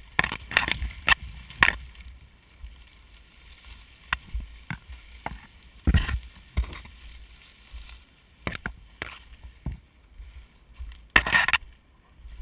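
Dry cattail and reed stalks brushing, scraping and crackling against a body-mounted camera while someone pushes through them on foot, in irregular rustles, with a loud, longer rustle about eleven seconds in.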